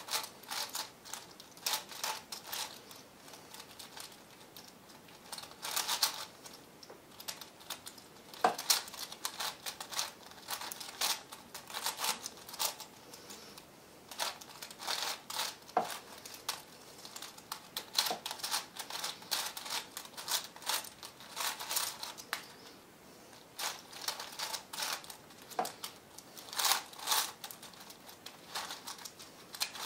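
V-Cube 7 (7x7x7 plastic puzzle cube) being turned by hand: runs of quick plastic clicking and clacking as its layers are twisted, broken by short pauses.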